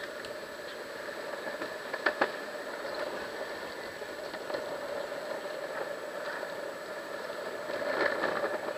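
Longboard wheels rolling steadily on asphalt, a continuous rolling hum with two sharp clacks about two seconds in and a louder swell near the end.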